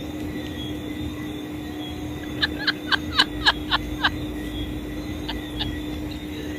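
A quick run of about seven short, high chirps, each sliding down in pitch, lasting about a second and a half, then two fainter chirps, over a steady background hum.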